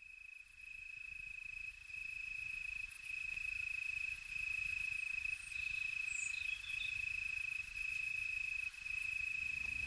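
Insect trilling like a cricket: a steady, high-pitched trill broken by short gaps about once a second, fading in over the first few seconds.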